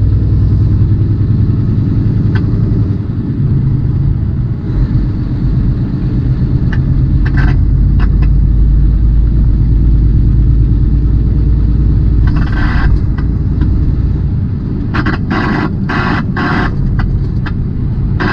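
Semi truck's diesel engine running under way, heard from inside the cab: a steady low rumble with road noise, joined by a few short, sharper sounds in the second half.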